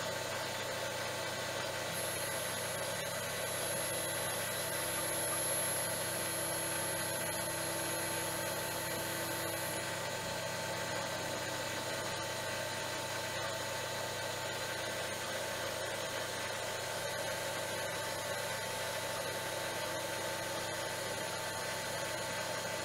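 CNC spindle running as a 6 mm carbide end mill takes a slightly deeper side cut along a hardened steel block, a steady machine whine with chips flying. A thin high whine rises over it about two seconds in, stops near ten seconds, and comes back more faintly on the return pass from about seventeen seconds.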